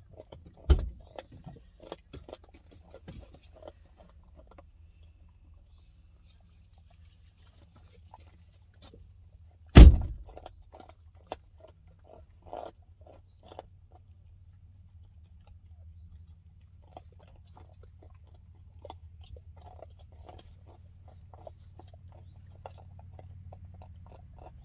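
Dogs gnawing and crunching beef neck bones: scattered small cracks and crunches, with a grunting, snuffling quality. Two loud thumps stand out, one about a second in and one about ten seconds in.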